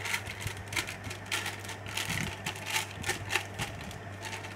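Baking paper crinkling and crackling in a run of irregular rustles as it is pressed and folded into a rice cooker's metal inner pot, over a low steady hum.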